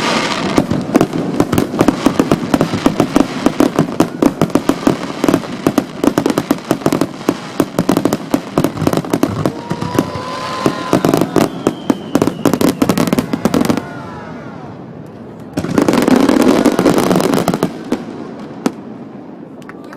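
Aerial fireworks: a dense barrage of rapid bangs and crackling that stops about fourteen seconds in, then one loud burst about two seconds later. The loud bangs are recorded on a digital camera and sound distorted.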